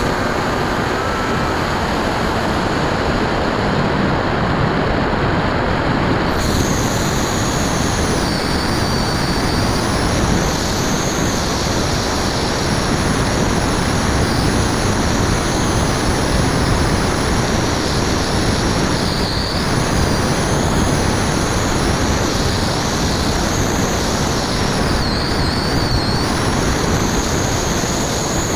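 Bixler 2 RC plane in flight, heard from its onboard camera: a loud, steady rush of wind and propeller noise from its brushless motor and 9x6 propeller. From about six seconds in, a high whine wavers up and down in pitch.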